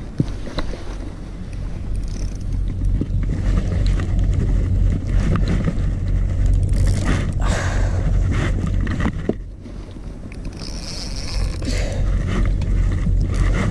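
Steady low rumble on a kayak-mounted camera, with scattered scrapes and knocks from handling the fishing rod and reel, and two stretches of brighter hiss in the second half.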